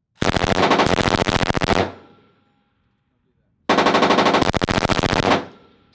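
Belt-fed machine gun firing two bursts of automatic fire, each about a second and a half long and about two seconds apart, the rapid shots trailing off in an echo after each burst.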